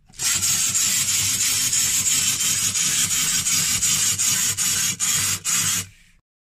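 Clockwork motor of a plastic wind-up toy dog whirring as its spring unwinds and it walks across a wooden table, with a faint regular beat of two to three strokes a second. It stops abruptly near the end.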